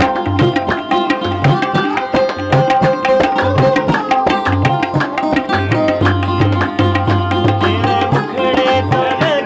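Instrumental interlude of a Hindustani-style song: tabla playing a steady rhythm, its deep bass drum strokes booming under the sharper right-hand strokes, with a sarod plucking a melody of held and sliding notes.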